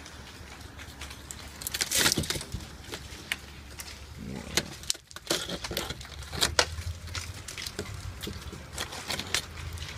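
Ice crust on a metal patio table cracking, with scattered sharp clicks and snaps and a louder crunch about two seconds in.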